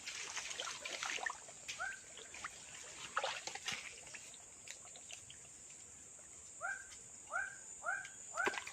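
Faint clicks and rustling, then a bird calling a run of short, arched notes about twice a second near the end, with one lone note earlier.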